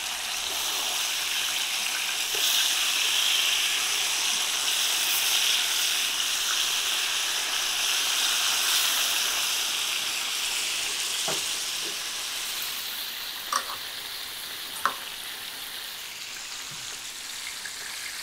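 Salmon fillets shallow-frying in olive oil in a pan: a steady sizzle that eases a little in the last few seconds. A few short, sharp clicks in the second half.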